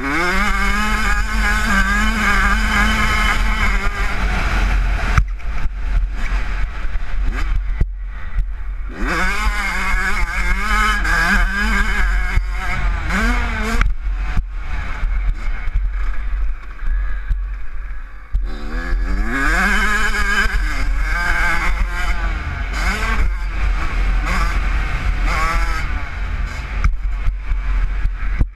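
Kawasaki KX85 single-cylinder two-stroke dirt bike engine revving hard under way. The pitch climbs again and again as the bike accelerates through the gears, and it dips briefly several times as the throttle is shut off.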